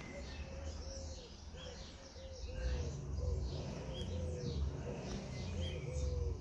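Birdsong: a pigeon cooing in a repeated low phrase, with small birds chirping higher above it and a low rumble underneath.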